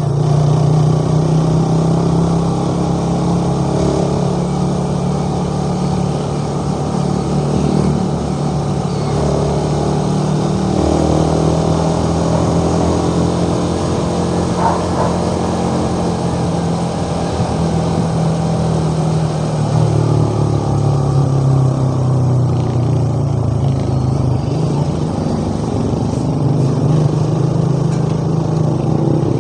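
Motorcycle engine running while riding, its pitch rising and falling with speed.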